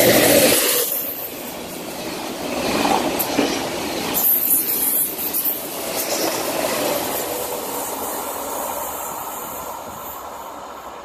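Double-deck TGV Lyria high-speed electric train passing close by on the station track: loudest as the power car goes past at the start, then the steady rush and rumble of the carriages, fading away toward the end as the train recedes.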